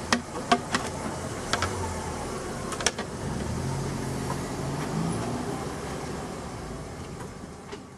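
A car engine running in the street, its low hum rising a little about halfway through. A few sharp clicks and knocks come in the first three seconds.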